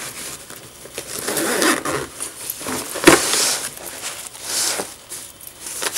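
Zipper of a nylon toiletry bag being pulled open in several scratchy strokes, with the fabric of the bag rustling as it is handled, and a sharp click about three seconds in.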